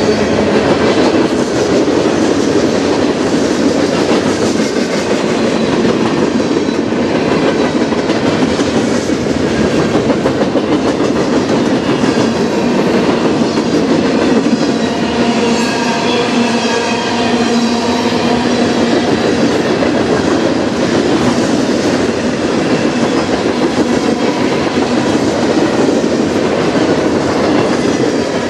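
Freight cars of a CN manifest train rolling past at close range: hoppers, tank cars and lumber-loaded centerbeam flatcars. Steel wheels on rail make a steady loud rumble and clatter over the joints, with faint high ringing tones above it.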